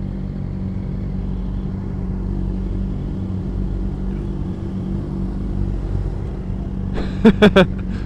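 Sport motorcycles idling at a standstill, a steady low engine hum heard from the rider's helmet. About seven seconds in come three short sharp blips in quick succession.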